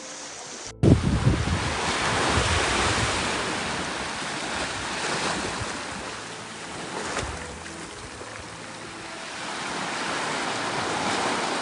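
Sea waves breaking and washing on a shore, swelling and easing several times, with wind buffeting the microphone. Soft background music cuts off abruptly less than a second in.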